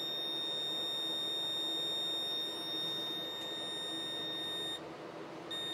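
Stanley wall scanner giving a steady high electronic beep as it passes over a potato lodged inside a plastic pipe, signalling the hidden blockage. The tone cuts off about five seconds in, and a short beep follows near the end.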